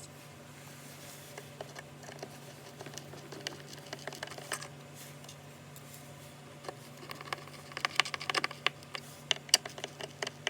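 Scattered light clicks and taps, with a quick run of rapid clicking about three-quarters of the way through, over a steady low hum.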